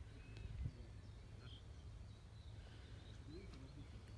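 Faint outdoor ambience: a low steady rumble with scattered distant bird chirps, and a soft thud about half a second in.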